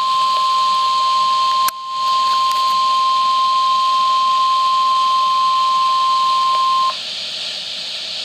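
NOAA Weather Radio 1050 Hz warning alarm tone: one steady, loud tone over the receiver's hiss, with a click and a brief dropout about two seconds in, cutting off about seven seconds in to leave only radio hiss. The tone signals that a warning message is about to follow.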